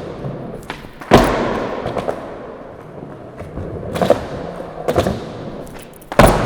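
Skateboard slamming down onto the ground twice, about a second in and again near the end, each hit followed by a fading rumble, with lighter knocks of the board in between during attempts at flip tricks.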